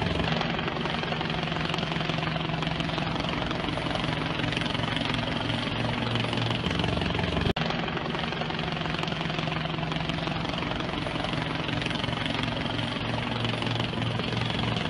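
A steady engine drone with a low hum, broken by a brief dropout and click about halfway through.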